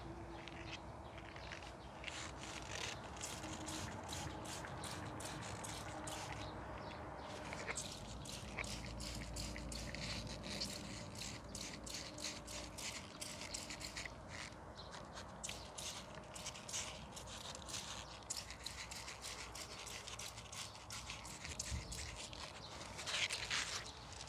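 Quick scratchy rustles and soft clicks, several a second, from hands working among grapevine foliage while treating the grape flower clusters with gibberellin solution.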